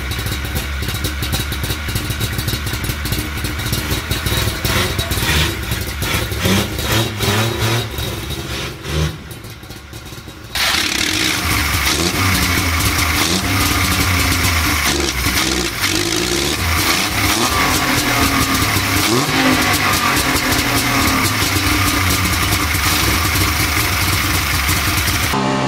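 Melkus RS1000's tuned three-cylinder two-stroke Wartburg engine running and being revved, rising and falling in pitch. About ten seconds in it cuts to a louder, closer sound at the engine's three carburettors, with more blips of the throttle.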